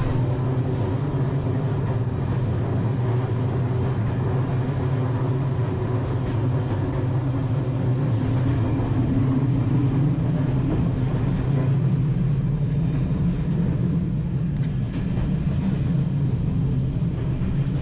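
Steady low hum and rumble inside a passenger train's sleeping car.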